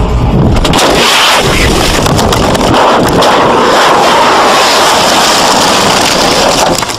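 A car crashing and tumbling at speed, heard from its own dash cam: loud, distorted banging, scraping and rushing noise for several seconds, easing near the end.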